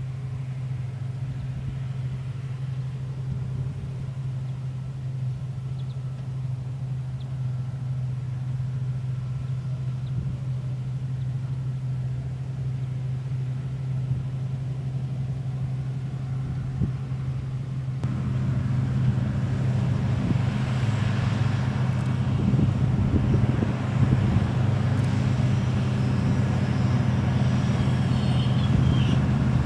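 New Holland harvest machinery's diesel engine running with a steady hum. It grows louder and busier about eighteen seconds in.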